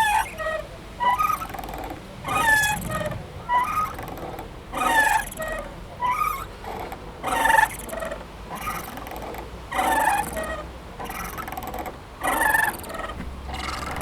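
Playground swing squeaking as it goes back and forth, with a pitched, gliding creak at each end of its arc. The creaks come about every one and a quarter seconds, every other one louder.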